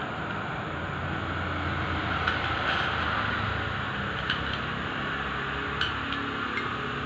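A few light metallic clicks as clutch plates are set into an automatic transmission clutch drum, over a steady background hum.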